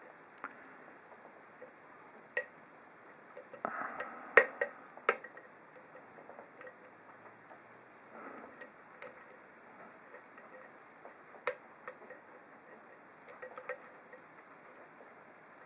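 Lock pick working the pins of an ASSA SCD 7-pin oval lock cylinder under tension: scattered small metallic clicks and ticks, with a cluster of sharper, louder clicks about four to five seconds in.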